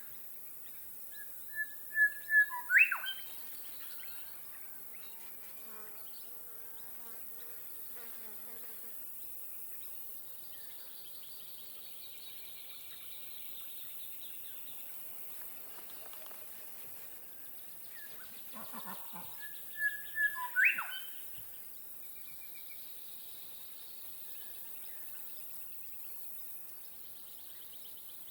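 Lakeside wildlife ambience: a bird gives a short, loud burst of a few quick calls twice, once near the start and again about two-thirds of the way through. Between the calls there is a steady hiss and a faint buzz of insects.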